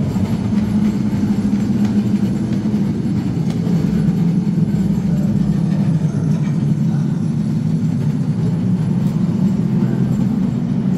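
Steady low engine drone with a constant pitch, played as a museum exhibit's sound effect through the mock aircraft fuselage.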